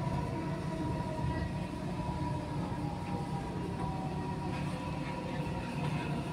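Dubai Metro electric train running at speed, heard from inside the carriage: a steady low rumble with a thin, even whine above it.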